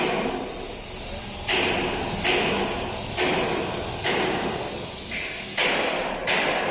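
Automatic large-panel sewing machine at work: a series of sudden knocks, each followed by a short fading hiss of air, coming roughly every second.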